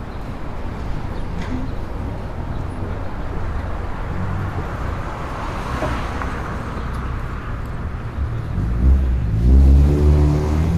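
City street traffic, with a steady rumble of engines and tyres. A car passes by about halfway through, and near the end a vehicle's engine revs up with rising pitch, the loudest moment.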